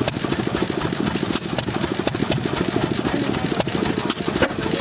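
An engine running steadily, with a fast, even chugging and a few sharp clicks.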